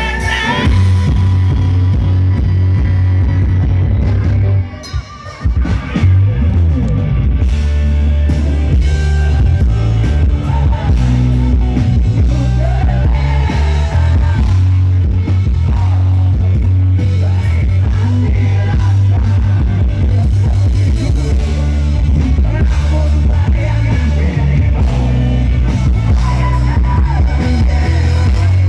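Live rock band playing loudly, with a singer, electric guitar and a heavy electric bass. The band stops briefly about five seconds in, then comes back in.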